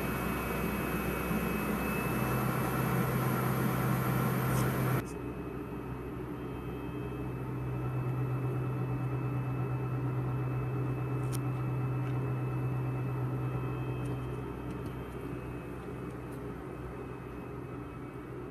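EF65 electric locomotive standing with its on-board equipment running: a steady low hum under a loud hiss. The hiss and part of the hum cut off suddenly about five seconds in. A lower steady hum carries on and fades out later.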